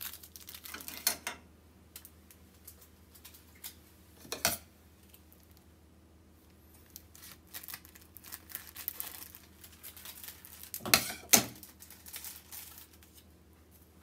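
Plastic packaging crinkling and tearing open, in scattered rustles and sharp crackles with a louder pair near the end, as a sheet of nori seaweed is taken out of its wrapper.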